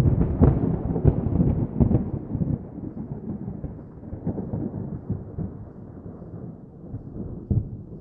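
Fireworks exploding: a sudden burst of deep booms and crackling bangs that is loudest in the first two seconds, then thins into scattered bangs over a fading rumble, with one sharper bang near the end.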